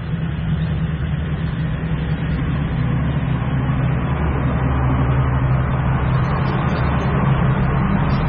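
Bass boat outboard motor idling steadily inside a corrugated metal culvert.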